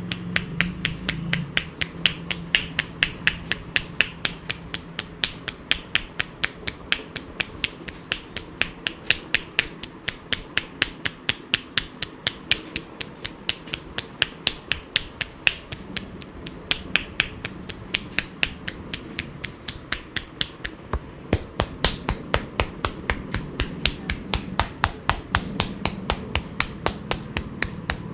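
Hands striking skin in a fast, even rhythm of sharp slaps, several a second: percussive tapping massage strokes.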